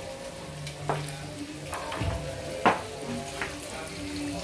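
Spring rolls sizzling as they deep-fry in hot oil in a small pot, with three sharp clicks of metal tongs against the pan; the loudest comes about two and a half seconds in.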